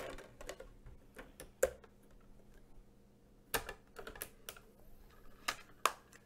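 Sharp plastic clicks and taps from a Sylvania 14-inch portable Blu-ray/DVD player as a disc is loaded and its top lid is shut. The clicks come one at a time, several seconds apart.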